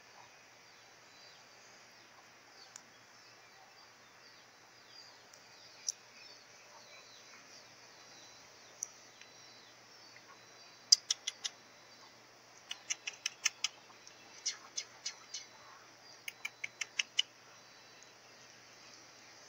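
A bird calling in the second half: four quick runs of sharp, high chirps, each of about four to seven notes, over a faint steady background hiss.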